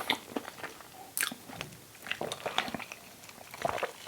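Close-miked chewing of a vegan sausage and cheese English muffin sandwich: scattered wet mouth clicks and soft crunches.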